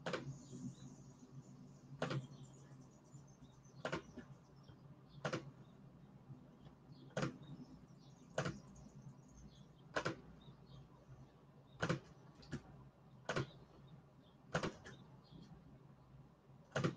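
Faint, sharp single clicks of someone working a computer, about a dozen, one every second or two, over a low steady hum.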